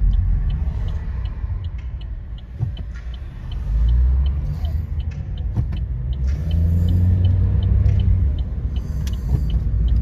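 Car driving on the road, heard from inside the cabin: a steady low road and engine rumble that swells a couple of times, with a regular light ticking over it.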